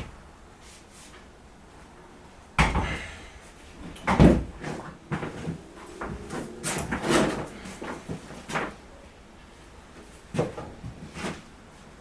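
Irregular clunks and short scrapes, like hard objects being knocked and moved about, with a sharp knock about two and a half seconds in and the loudest one about four seconds in.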